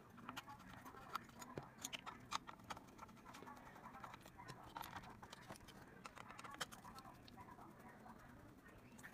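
Faint, scattered small clicks and light scraping of a screwdriver working the screws that hold the IGBT to its finned metal heatsink, and of the circuit board being handled.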